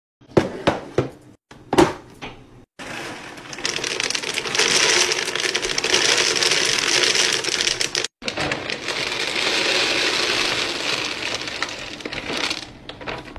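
A few sharp knocks, then dry cat kibble pouring from a bag into a plastic storage container: a steady dry rattle lasting about ten seconds, broken once briefly about halfway.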